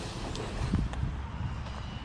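Losi Lasernut radio-controlled truck running over rough ground: a low rumble with a few short knocks and only a faint electric motor whine.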